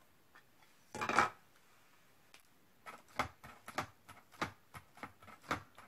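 A single clack about a second in, then a VersaMark ink pad dabbed repeatedly onto a rubber stamp: a run of light plastic taps, about three a second.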